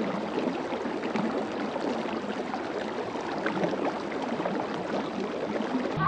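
Continuous splashing, trickling water noise, full of small irregular crackles.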